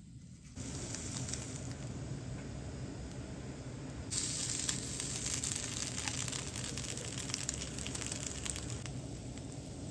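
Slices of luncheon meat sizzling on a hot non-stick grill plate over a canister gas stove, with fine crackling spatter. The sizzle starts about half a second in and grows louder about four seconds in.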